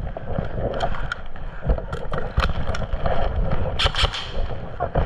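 Low rumbling noise on the microphone, with a scattered series of sharp clicks and knocks, the loudest a pair near the four-second mark.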